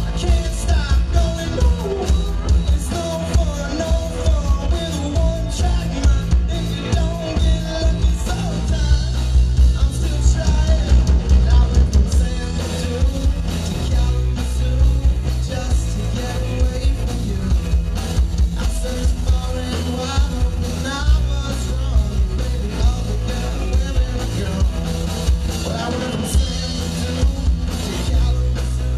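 Live rock band playing: electric guitars and drum kit, with a singer's lead vocal over them.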